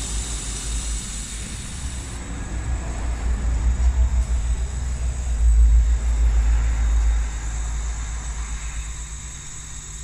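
CNC laser engraving machine running while it engraves acrylic: a low rumble under a steady hiss. The rumble swells around the middle and eases off near the end.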